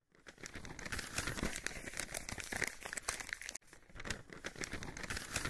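Paper crinkling and rustling as a parchment scroll is unrolled, a dense crackle in two stretches broken briefly about three and a half seconds in.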